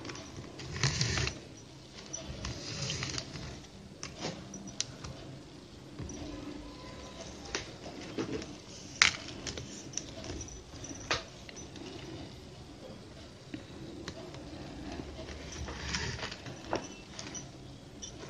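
Plastic weaving wire rustling and clicking as it is threaded and pulled through the rim of a woven plastic-wire basket. A few sharp clicks and taps stand out, the loudest about nine seconds in.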